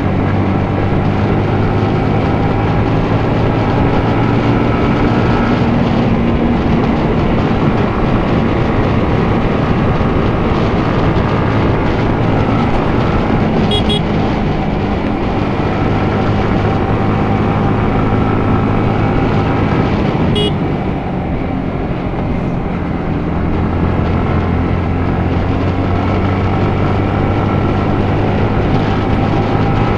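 Yamaha MT15's single-cylinder four-stroke engine running as the bike is ridden, its note steady with small rises and falls in pitch. The engine eases off a little about twenty seconds in, then picks back up.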